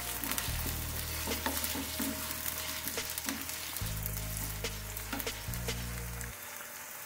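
Potato wedges frying in hot oil on a high flame in a nonstick kadhai: a steady sizzle peppered with many small crackles of spattering oil, as a wooden spatula turns them.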